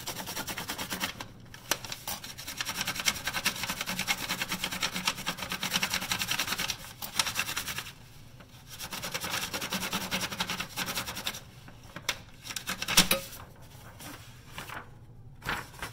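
Texture rubbing over a hairbrush: fast back-and-forth scratching strokes on paper laid over the brush, in long runs with a short pause about seven seconds in, then sparser scrapes and one sharp knock near the end.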